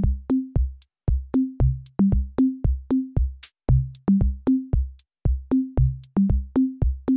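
Background electronic music: a drum-machine beat of sharp, evenly spaced hits with short low synth notes that step up and down in pitch.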